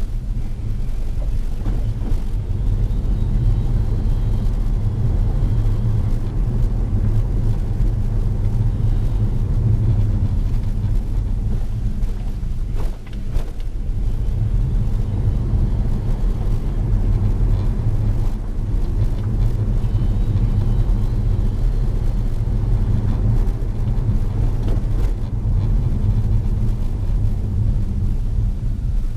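Tesla Model S 85 drive unit and road noise while driving, a steady low rumble with a faint high whine that rises and falls in pitch several times. Under power this is the drive unit's 'milling' noise, the fault that has led to drive unit replacements.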